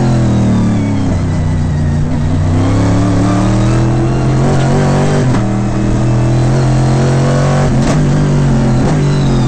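Stock car race engine at high revs inside the cockpit, the pitch climbing through a gear and dropping with a short break about five seconds and again about eight seconds in as it shifts up.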